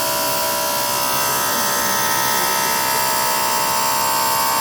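CNC stone-cutting machine for sintered stone slabs running steadily, a continuous high-pitched machine whine made of many tones over a haze of noise.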